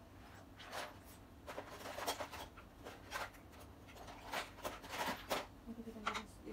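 Intermittent short scraping and rustling sounds of tools and small hardware being handled during flat-pack chair assembly.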